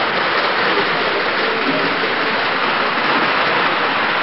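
Model train cars rolling along the layout's track close by, a steady rushing rattle of wheels on rail, with visitors' chatter in the room behind.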